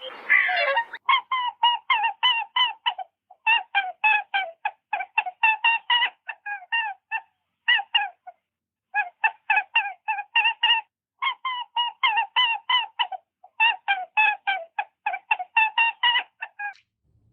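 A chicken clucking in rapid runs of short, clipped calls, about five a second, with brief pauses between the runs.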